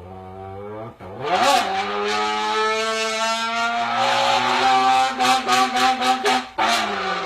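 A man imitating a car engine with his voice, doing a downshift from third gear to second: a low hum, a sharp rising rev about a second in, a long held engine note, then a quick stutter of blips and another rev near the end.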